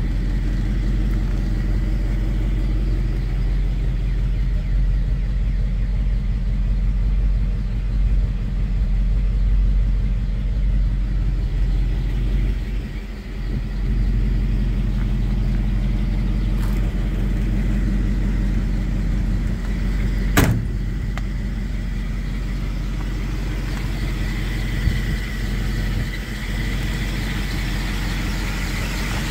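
1953 Ford F-100's flathead V8 idling steadily, with one sharp click about twenty seconds in.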